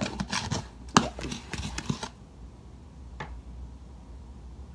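Hand mixing soft no-glue slime in a plastic bowl: a quick run of wet clicks and squelches for about two seconds, then quieter, with one more click about three seconds in.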